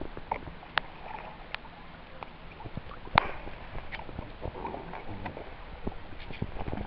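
Small water slaps and knocks against the hull of a jet ski drifting with no engine heard, in irregular short clicks over a faint wash of water and wind, with one sharper knock about three seconds in.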